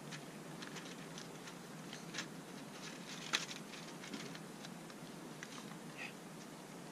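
Cats eating food from a small plastic tray: scattered small clicks and taps, with a couple of sharper clicks about two and three seconds in.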